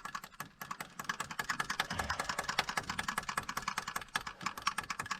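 Small fuel pump ticking rapidly and steadily, about a dozen clicks a second, as it draws old diesel through the truck's fuel line.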